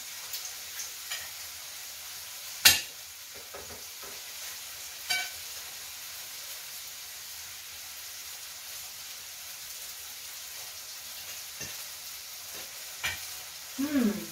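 Food sizzling steadily on an electric tabletop grill, with a few sharp clinks of tongs and cutlery on the plates and grill; the loudest clink comes about three seconds in.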